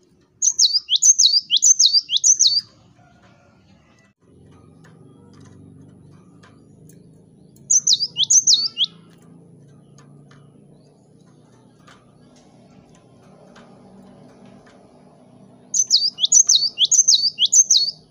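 Cinereous tit (gelatik batu) singing three bouts of quickly repeated high whistled notes, each note sliding down in pitch. The first and last bouts last about two seconds each, and a shorter bout of three notes comes in the middle, with pauses between them.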